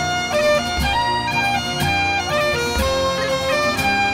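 Background music: a bagpipe-led tune with a steady beat about once a second.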